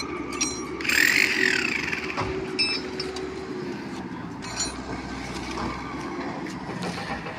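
Sharp metallic clinks with a ringing tone, a few seconds apart, from a steel track gauge being set on the rails, over the steady hum of a machine engine running. About a second in, a loud high sound rises and falls in pitch.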